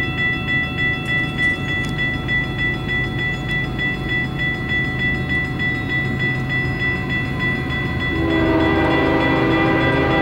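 Railroad grade-crossing bell ringing in a steady pulse over the low rumble of an approaching freight train. About eight seconds in, the lead diesel locomotive's air horn comes in, a held multi-note chord that is louder than the bell.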